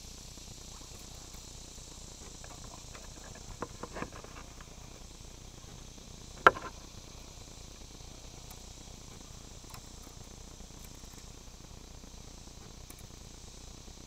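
Steady, high-pitched insect chorus. A few light clicks come about four seconds in, and a single sharp knock about six and a half seconds in.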